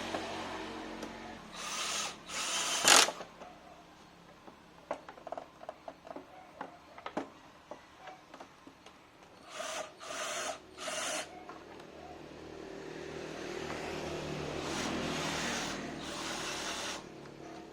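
A small power tool run in several short bursts of about a second each, with scattered clicks and knocks of handling between the bursts.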